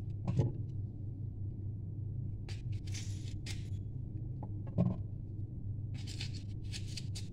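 Kitchen knife cutting pieces from an apple held in the hand: a few short, crisp cuts and two soft knocks, over a steady low hum.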